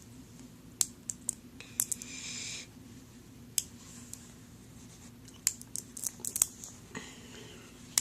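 Neocube's small neodymium magnet balls clicking and snapping together as they are handled, with a short rustling scrape about two seconds in and a quick run of clicks later on.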